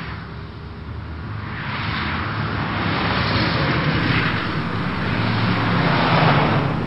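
Road traffic passing: a noisy rush with engine hum that swells and fades as vehicles go by, growing loudest near the end.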